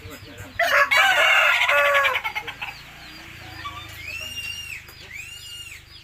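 A rooster crows loudly, starting just over half a second in and lasting about a second and a half. Later come two short, high, arching calls about a second apart.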